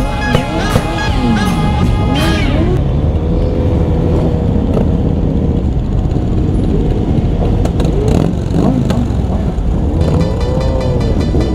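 Many motorcycle engines idling and revving, with rising and falling pitch, as a large group of riders pulls away. Music plays over them for the first couple of seconds and comes back near the end.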